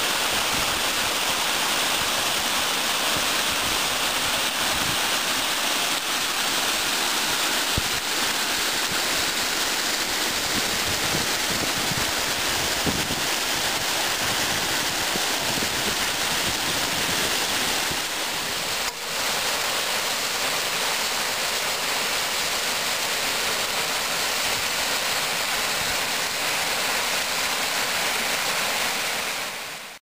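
Small creek waterfall and cascade: water rushing and splashing steadily over rocks. It dips briefly once about two-thirds of the way through and fades out at the very end.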